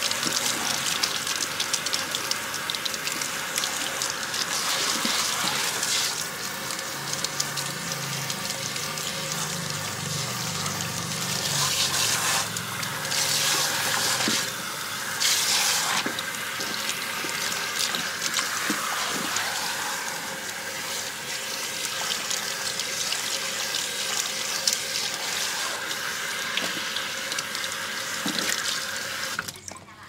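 Water from a salon shampoo basin's handheld spray head running steadily over wet hair and splashing into the basin as shampoo is rinsed out. The flow cuts off sharply near the end.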